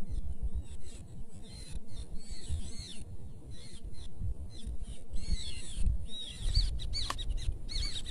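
Small birds chirping: a short rising-and-falling note repeated again and again, coming quicker near the end, over a low rumble.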